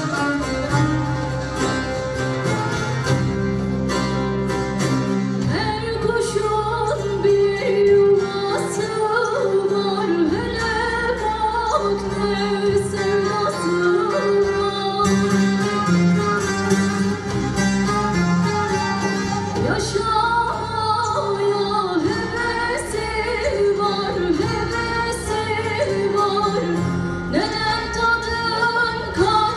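Live Turkish folk song: a woman sings an ornamented, wavering melody over an ensemble of bağlamas (long-necked saz lutes). The voice comes in after a short instrumental passage of a few seconds.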